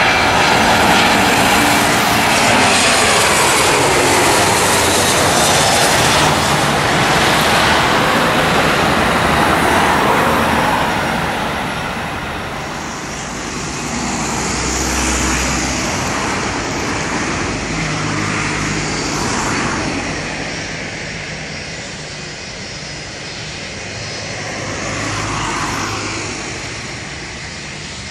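Airbus A321 airliner's twin jet engines, loud as the aircraft passes low overhead on final approach, with a sweep falling in pitch as it goes by. After about twelve seconds comes quieter jet noise from the airliner on the runway, swelling and fading twice.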